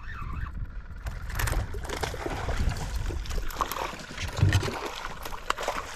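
Water splashing at the side of a small boat as a hooked redfish is brought in and netted, over a rumble of wind buffeting the microphone.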